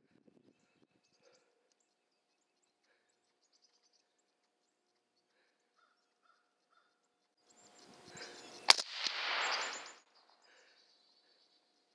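A single .308 rifle shot about three-quarters of the way in, sharp and loud, followed by about a second of trailing noise.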